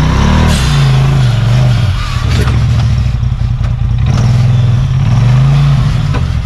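Side-by-side UTV engine revving up and down in repeated surges, with a few sharp knocks and clatters.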